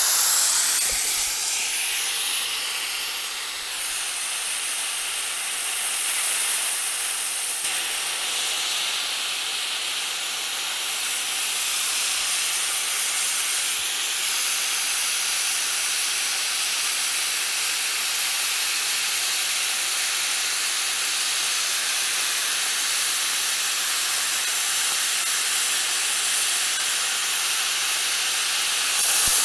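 Plasma cutter with an IPT-60 torch cutting through metal plate: a loud, steady hiss of the plasma arc and its compressed-air jet, starting abruptly as the arc strikes.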